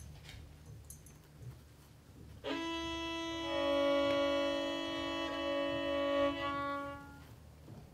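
A small ensemble of trumpets, saxophone and violins sounds one held chord, coming in suddenly about two and a half seconds in and cutting off about seven seconds in.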